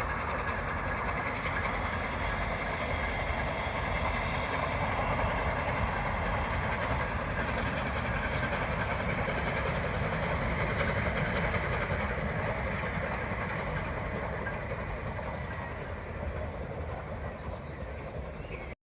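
Train hauled by the Peppercorn A1 steam locomotive 60163 Tornado running past, the wheels of the coaches clattering steadily over the rails. The sound fades as the train draws away near the end and then cuts off abruptly.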